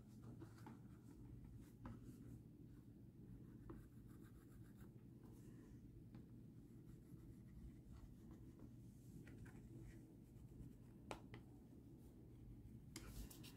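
Faint scratching of a pen tracing around a crocheted piece on a sheet of plastic, with a few soft clicks, over a low steady room hum.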